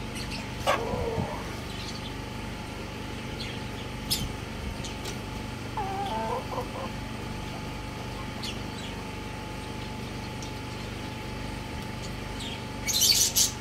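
Rooster clucking while it forages: a short call about a second in and a longer wavering call around the middle, with scattered sharp clicks. Near the end comes a brief, loud rustling noise.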